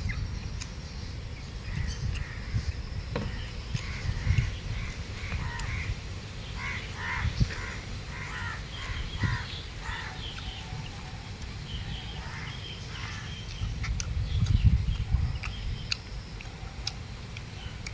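Crows cawing over and over, a quick run of harsh calls in the middle and scattered calls after it, over a low steady rumble.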